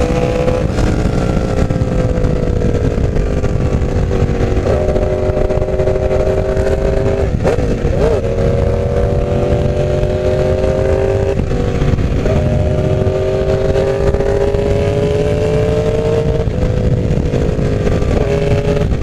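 Yamaha R1's inline-four engine running under way, over a steady low rush of wind and road noise. The engine pitch drifts slowly and jumps abruptly several times as gears change.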